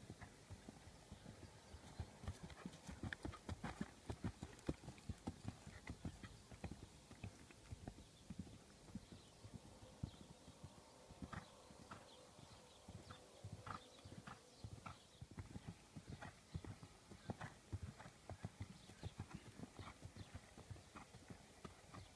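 Faint hoofbeats of an unshod horse going under a rider on hard, uneven grass ground, a continuous run of dull thuds.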